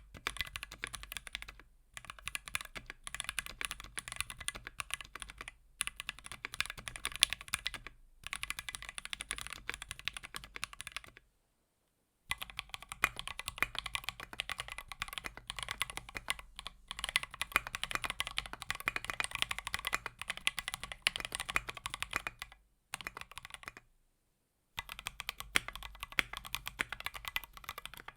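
Fast typing on a 60% mechanical keyboard with an aluminium plate and lubed C3 Tangerine linear switches: dense runs of keystroke clacks in several stretches, broken by two short silences.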